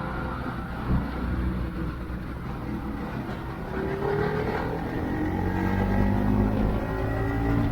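Bajaj Pulsar NS200 motorcycle running on the road, its engine note rising in pitch as it accelerates through the second half, over wind and road noise. A short knock about a second in.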